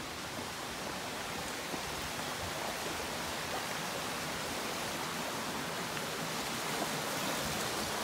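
A steady, even rushing hiss with no distinct events in it.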